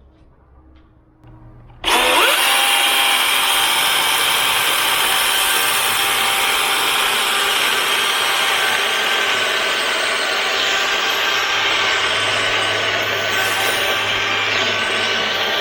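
DeWalt 60V battery-powered chainsaw spinning up with a quick rising whine about two seconds in, then cutting steadily through a cedar log.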